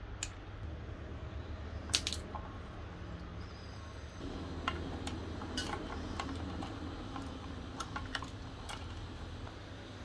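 Light clicks and rattles of plastic wire connectors and cables being handled, with the loudest click about two seconds in, and a busier rustle of handling in the second half. A steady low hum runs underneath.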